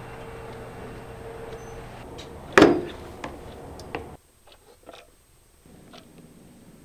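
A steady hum that stops about two seconds in, a single loud thump just after, then a clock ticking about once a second in a quiet room.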